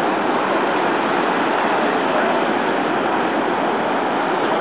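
Steady rush of ocean surf washing up the beach.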